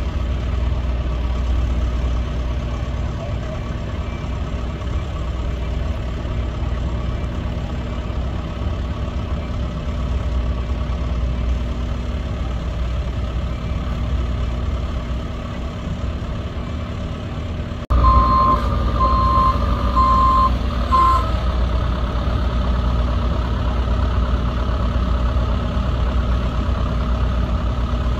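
Heavy diesel machinery running steadily. About two-thirds of the way through, the sound jumps abruptly louder, and a reversing alarm gives four short, even beeps.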